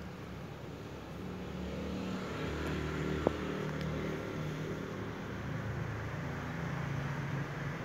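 Steady low background rumble with a faint hum, growing slightly louder about two seconds in, broken by one sharp click about three seconds in.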